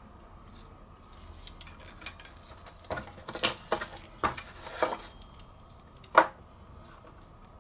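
Clinks and clatters of the metal CPU heatsink being handled on a hard surface, with a cluster of knocks in the middle and one sharp click about six seconds in.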